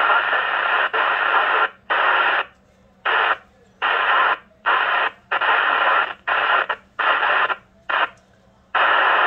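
Alinco CB radio receiving on channel 26 FM: loud radio static hiss that cuts in and out abruptly about ten times, with short silent gaps between the bursts, as the squelch opens and closes on incoming signals.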